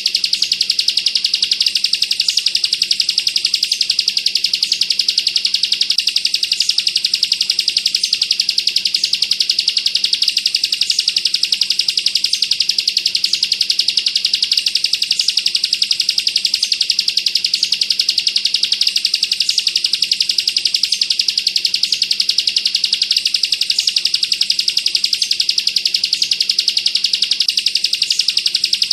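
Bar-winged prinia (ciblek kristal) singing an unbroken, very fast machine-gun trill, the 'bren rapat' song, with a brighter high note recurring about once a second.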